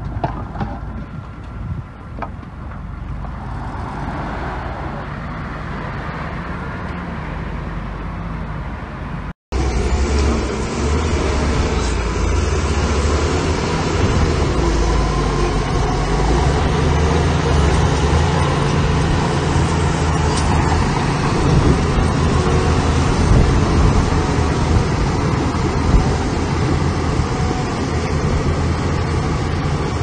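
Heavy diesel earthmoving machinery running, a steady low engine drone. About nine seconds in there is a sudden break, and after it the engine is louder and closer.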